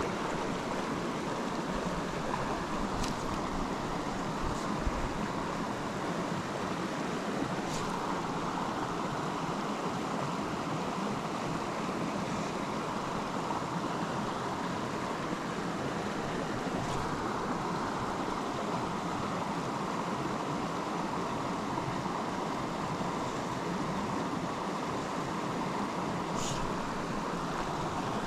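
Steady rush of a small stream's flowing water close to the microphone, with a few faint ticks.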